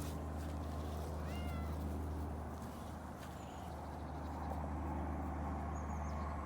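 Domestic cat meowing once, a short call that rises and falls in pitch about a second and a half in, over a steady low hum.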